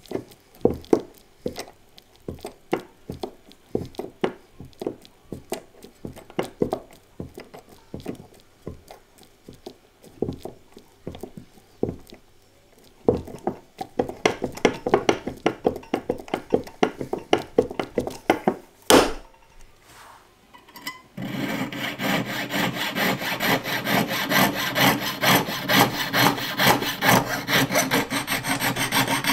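Short separate scraping strokes of hand metalwork on a ring band, growing denser, with one sharp click. About 21 seconds in, a jeweller's piercing saw starts cutting into an 18ct gold ring band: a steady rhythmic rasp of about three strokes a second.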